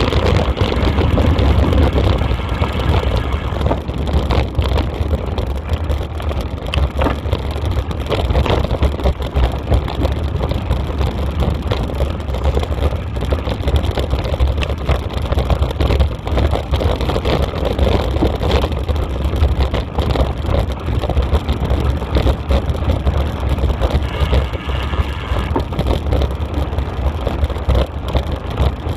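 Heavy wind buffeting on the microphone over a steady rumble of wheels on a gravel forest track, with many small rattles and knocks from the bumpy ride.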